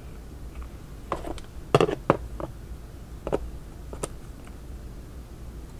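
A handful of light clicks and taps from metal tweezers picking up a thin nickel strip off a plastic work tray, the two sharpest close together about two seconds in, over a low steady hum.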